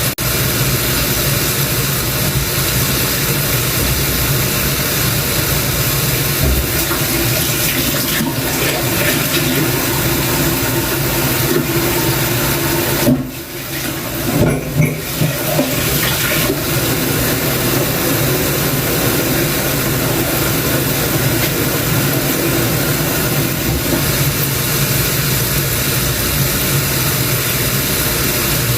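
Water rushing steadily, as from a running tap. It breaks off briefly about thirteen seconds in, with a few knocks as it comes back.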